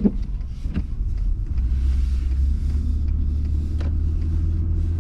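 Steady low rumble of a car on the move, with a couple of faint clicks.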